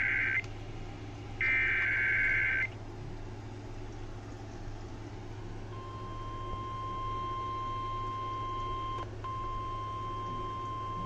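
NOAA Weather Radio SAME alert header: the tail of one burst of warbling digital data, then a second burst about a second long shortly after. About six seconds in, the steady 1050 Hz warning alarm tone starts and keeps sounding, with a brief dropout about nine seconds in, over a faint steady receiver hum.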